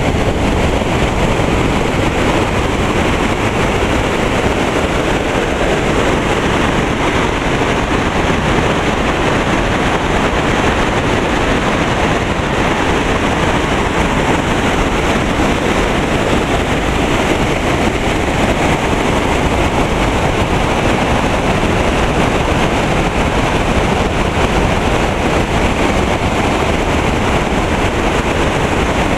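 Whitewater of a mountain creek rushing and cascading over boulders: a loud, steady, unbroken rush.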